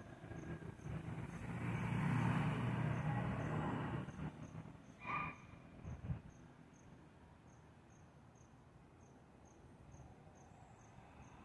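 Crickets chirping steadily, about three high chirps a second. A louder rumbling swell of noise rises and fades in the first few seconds, followed by two short louder sounds around five and six seconds in.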